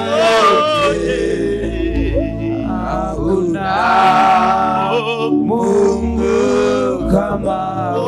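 A man singing a Swahili worship song into a microphone, drawn-out notes with vibrato and short breaks between phrases, over a steady low accompaniment.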